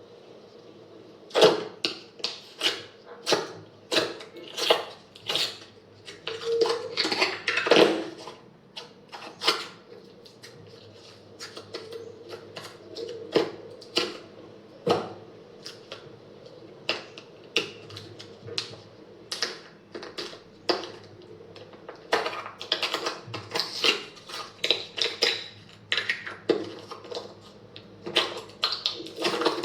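Slime being pressed and stretched by hand, making irregular sharp clicks and pops, some in quick clusters.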